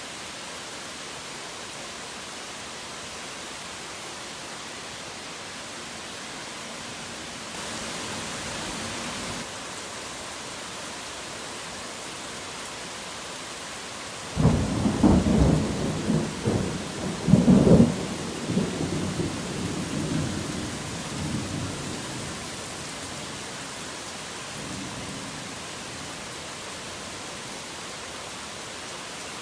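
Steady heavy rain, with a thunderclap about halfway through that peaks twice, a few seconds apart, then rumbles away over several seconds.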